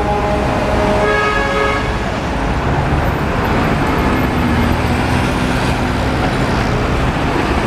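Busy road traffic, cars driving past with engines and tyres running, and a vehicle horn honking briefly about a second in.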